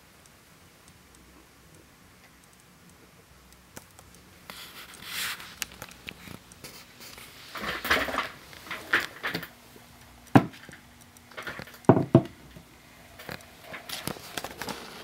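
Handling noise: scattered rustles, clicks and knocks after a few quiet seconds, with two sharp knocks about ten and twelve seconds in.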